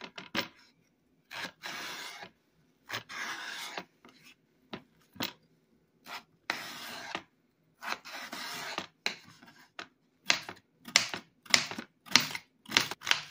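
A kitchen knife cutting through a peeled raw russet potato on a wooden cutting board: several drawn-out scraping strokes as the blade slices lengthwise. From about ten seconds in comes a steady run of sharp taps of the blade on the board, about two a second, as the potato is chopped into pieces.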